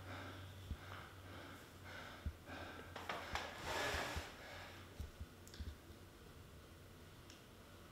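A man breathing hard and fast, out of breath from exertion, with one long, louder exhale about four seconds in, after which the breathing grows quieter.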